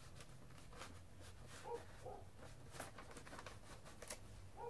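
Faint rustling and a few soft clicks of a vinyl LP and its paper inner sleeve being handled, the record being eased back into the sleeve.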